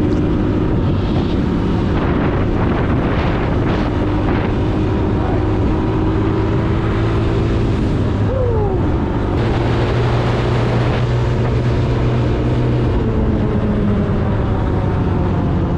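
Honda TRX90 ATV's small single-cylinder engine running steadily while it is ridden, with a short falling tone about halfway through and wind on the microphone.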